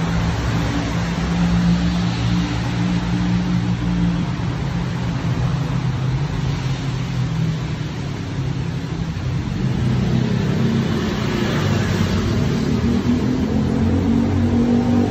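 City road traffic: motor vehicle engines running steadily over a constant noise of traffic, then an engine rising in pitch as a vehicle accelerates from about ten seconds in.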